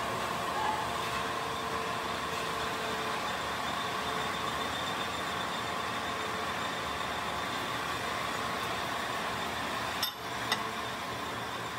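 Hydraulic press machinery running steadily, a constant mechanical hum and hiss with a few held whining tones. About ten seconds in, the sound briefly dips and there is a sharp click.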